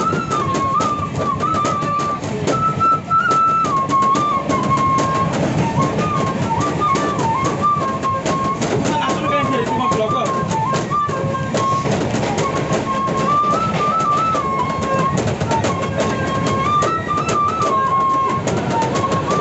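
Bamboo flute playing a stepping folk-style melody, one note at a time, with percussive beats underneath.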